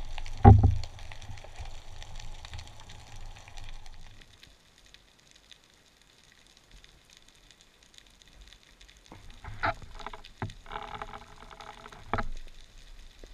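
Muffled underwater sound through a camera housing. There is a loud knock about half a second in, then faint water noise and a stretch of near quiet, with a few sharp clicks and a short rushing burst around ten seconds in.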